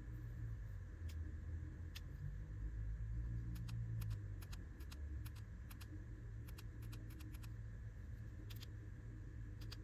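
Faint handling of small action-camera accessories: scattered light clicks and taps, bunched together in the middle, over a low steady hum.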